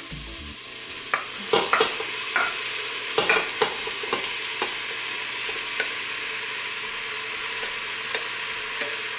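Onions and garlic sizzling in an Instant Pot's inner pot, with a scatter of short knocks and clatters as browned beef cubes and mushrooms are scraped off a plate with a wooden spoon and drop in; the knocks come mostly in the first few seconds and thin out later.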